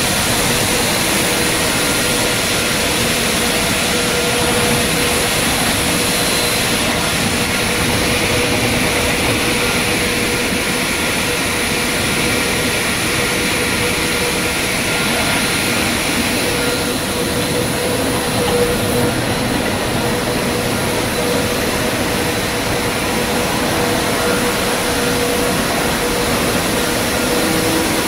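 Loud, steady whir and hum of a running fried-snack production line: motors, conveyors and fans together, with a steady tone over an even noise.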